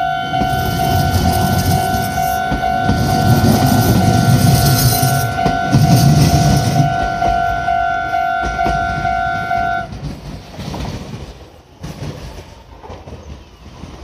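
Meitetsu 3100-series electric train running past a level crossing, its wheels rumbling and clicking over the rails, while the crossing's electronic warning bell rings steadily. The bell stops about ten seconds in as the train clears the crossing, and the train's rumble fades.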